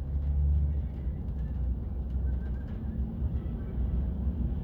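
Outdoor ambience: a steady low rumble with a few faint bird chirps over it.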